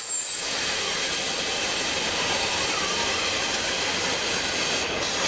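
A steady, rushing hiss with no clear pitch or rhythm.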